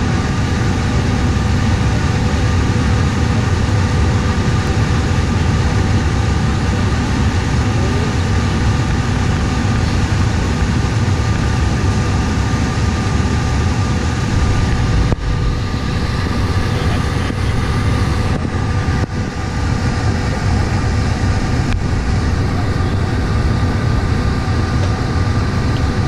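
Steady jet whine and rumble heard inside the cabin of a CRJ-900 regional jet on the ground, with a couple of brief dips in level.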